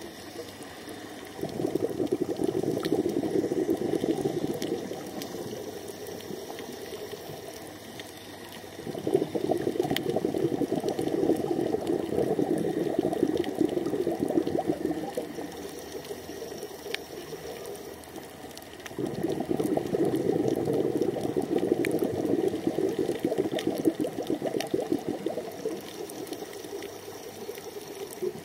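Scuba diver's exhaled bubbles rushing from the regulator in three long bursts of several seconds each, with quieter gaps between breaths. Faint scattered clicks sound over it.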